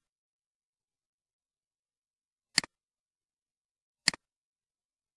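Two computer mouse clicks about a second and a half apart, each a quick press and release.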